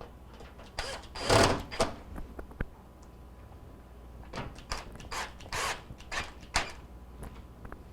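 Handling noises from reassembling a microwave's sheet-metal cabinet: a loud scrape about a second in, then a run of short rubbing and knocking sounds and a sharp click near the end.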